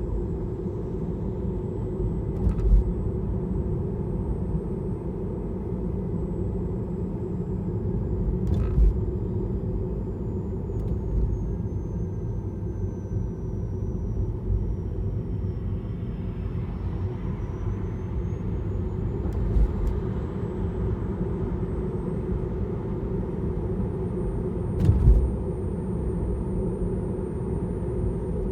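Tesla Model 3 on the move: steady road rumble with a thin, high whirring whine from the front drive unit that falls in pitch around the middle and rises again. A few sharp thumps come from the tyres crossing manhole covers. The owner is unsure of the whine's cause and wonders whether it is battery preconditioning or a drive unit running warm.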